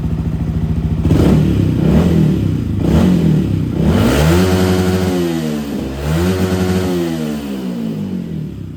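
Stock Yamaha WR155's single-cylinder four-stroke engine, fully warmed up, idling and then blipped three times before being revved up and held at the rev limiter twice, with a short drop in between, and then falling back to idle near the end. Loud throughout.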